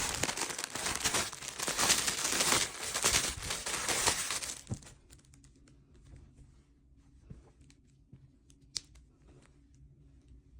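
Packaging being torn open and crinkled, loud and continuous for about the first four and a half seconds. After that come a few light handling ticks and one sharp click.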